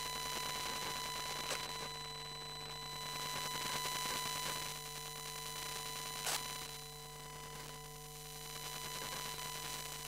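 Electromagnetic interference from a wifi router picked up by a phone pickup coil: a steady static hiss with several fixed whining tones layered over it. Two short clicks cut through, one about a second and a half in and another about six seconds in.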